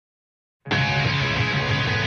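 Silence, then background music starts suddenly about two-thirds of a second in and plays on steadily.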